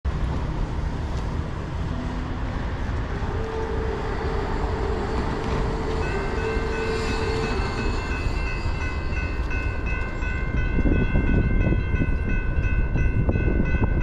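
A railroad crossing bell starts ringing about six seconds in, a fast, steady run of dings, over a low rumble that grows louder near ten seconds. Before the bell, a distant train horn sounds in long blasts.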